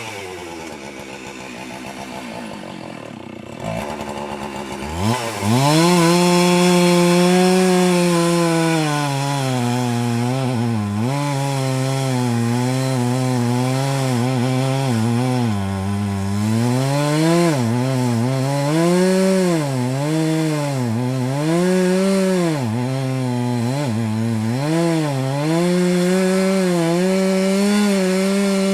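Husqvarna 390XP 88cc two-stroke chainsaw running low for the first few seconds, then revved up to full throttle about five seconds in. It then cuts through a log, the engine pitch dipping under load and recovering again and again, and ends at full revs.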